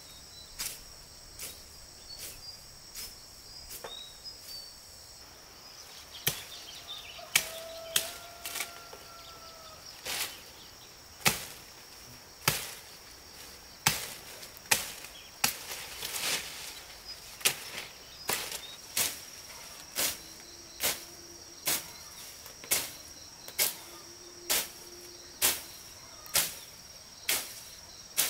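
Repeated sharp chopping strikes of a hand tool into wood, about one a second, growing louder after the first few seconds. Insects trill steadily underneath.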